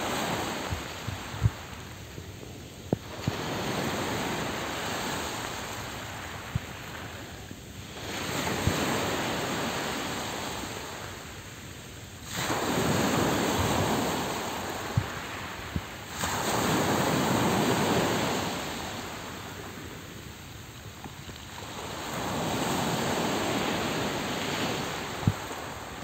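Sea waves breaking and washing up a pebble beach. Each wave is a swell of rushing noise, arriving about every four to five seconds, and two break suddenly near the middle. Short sharp clicks are scattered throughout.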